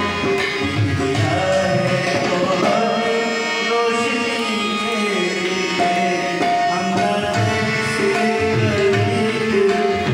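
A man singing into a microphone, accompanied by tabla drumming and long held melodic tones.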